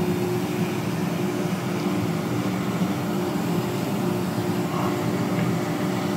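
Steady mechanical hum from the ship's deck crane machinery running while it holds the cargo grab on its wires, with a few steady low tones and no change in pitch.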